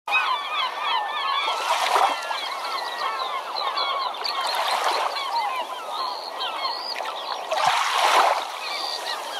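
A large flock of birds calling over one another in many short, quick, rising and falling cries. Rushes of noise swell up about every three seconds.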